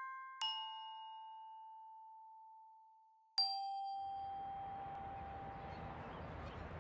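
Bell-like chime tones stepping down in pitch. One is already ringing, a lower one is struck just after it, and a third, lower still, comes about three seconds later; each rings out and fades. About four seconds in, a steady background noise comes up.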